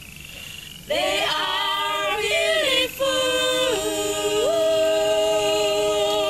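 Unaccompanied singing to a Naga folk tune, the English line "They are beautiful!" sung on long held notes that step between pitches. The singing starts about a second in and breaks briefly about halfway through.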